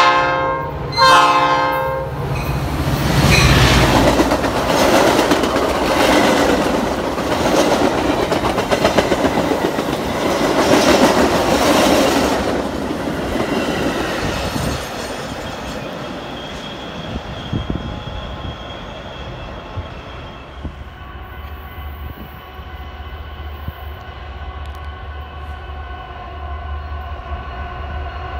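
A commuter passenger train sounds two short horn blasts, then passes close by with loud wheel-and-rail rumble and clatter from its stainless-steel cars that fades after about 15 seconds. Near the end, a distant approaching train gives a quieter steady drone with held tones over a low hum.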